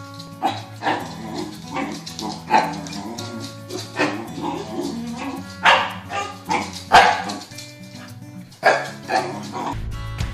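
A dog barking, a string of sharp, irregular barks with the loudest about six and seven seconds in, over background music.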